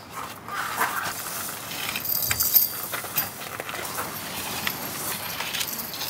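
Tent fabric rustling and crumpling as a large tent is pitched by hand, with scattered light clicks and knocks from its frame.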